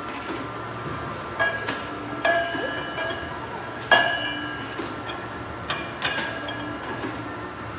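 Several sharp metallic clinks, each ringing briefly, the loudest about four seconds in, over a steady low hum of running workshop machinery.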